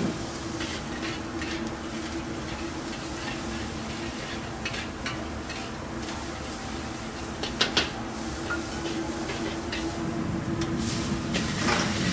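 Metal ladle stirring and scraping in a steaming wok over a commercial wok burner, with sizzling and a steady burner hum underneath. Two sharp clanks of the ladle against the wok come a little past halfway.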